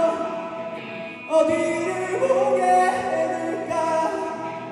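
A live rock band plays the closing bars of a song: electric guitars and keyboard ring out sustained chords that change about a second in, with no heavy drumming. The music slowly grows quieter toward the end.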